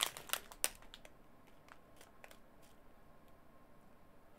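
Clear plastic drill bags on a strip crinkling and clicking a few times in the first second as they are handled, then only a few faint ticks against a quiet room.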